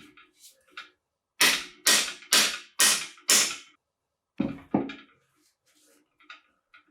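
Hammer blows on a metal engine part: five sharp strikes about two a second, then two more about a second later, followed by faint small clicks.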